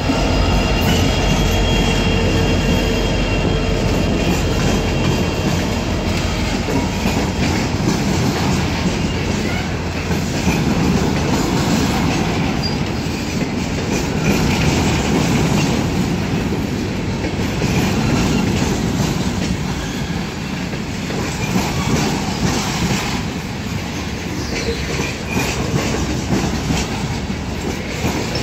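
Manifest freight train's cars rolling past: a steady rumble of steel wheels on rail with repeated clicking over rail joints, and a thin wheel squeal in the first few seconds.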